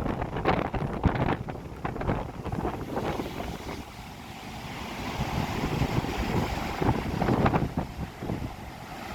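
Gusty sea wind buffeting the microphone over the rush of rough surf; a wave washes in and swells through the middle.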